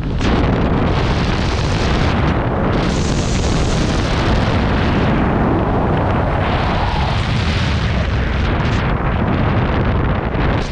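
Freefall wind rushing over the microphone during a skydive: a loud, steady roar whose hiss grows brighter and duller by turns.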